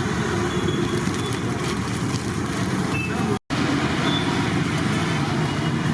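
Roadside traffic noise with voices mixed in. The sound cuts out completely for an instant about three and a half seconds in.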